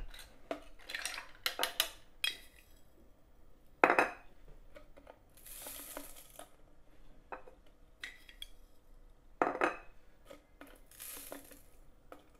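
Utensils clinking and knocking against dishes during kitchen work, with two sharper knocks and two short hissing sounds in between.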